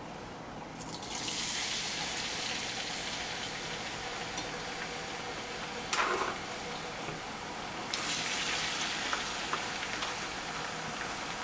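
Food frying in hot oil in a pan: a steady sizzle, with a short knock about six seconds in.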